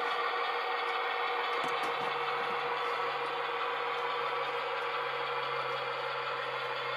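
Model railway locomotives running on a layout: a steady engine-like drone, with a lower hum joining about two seconds in.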